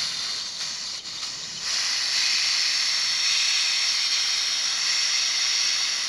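Pressurised nitrogen hissing out of split heat pump refrigerant pipework through the manifold valves, venting the test pressure after a passed pressure test. The hiss grows louder about two seconds in and then holds steady.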